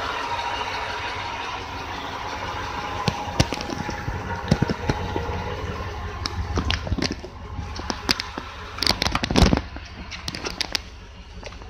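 Pickup truck's engine idling through a new fully welded muffler and tailpipe, a steady low rumble. Over it come sharp clicks and knocks, loudest in a cluster about nine seconds in.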